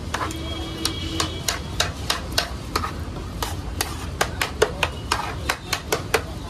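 Steel spoon knocking and scraping against the metal bowl of pea curry as it is stirred: sharp, irregular clinks, a few a second, over a steady low hum.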